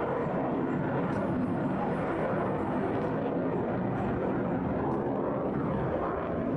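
F-22 Raptor's twin Pratt & Whitney F119 turbofans: steady jet noise from the fighter flying high and far off, holding an even level throughout.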